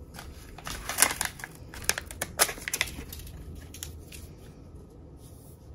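Clear plastic packaging crinkling and crackling as it is pulled open by hand: a quick run of sharp crackles over about three seconds, then a few fainter ticks.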